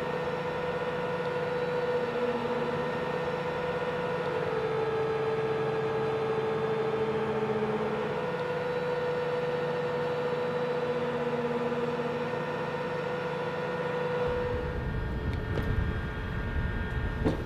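A heavy vehicle engine running steadily with a constant whining tone. Near the end it gives way to a deeper rumble and a few sharp metallic clinks.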